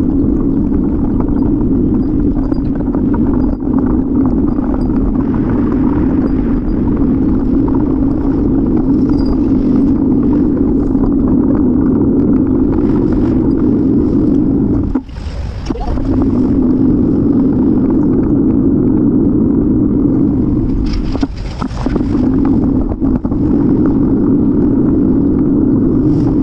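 Steady, muffled rumble of wind and road noise picked up by a camera riding on a moving bicycle, dipping briefly twice, once just past the middle and again a few seconds later.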